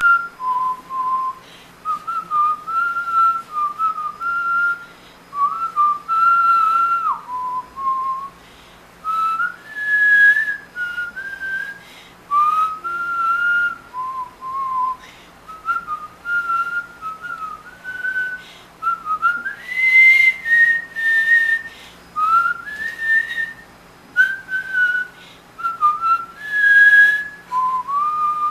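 A man whistling a melody through pursed lips, in short phrases of stepping notes with brief pauses between them.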